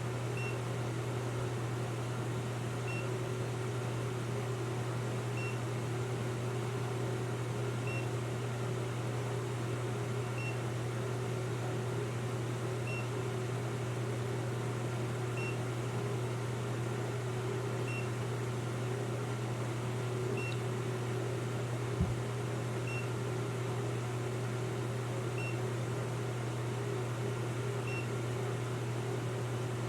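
Short, faint, high electronic beep from a carbon monoxide detector, repeating evenly about every two and a half seconds over a steady low hum, with a single click about 22 seconds in.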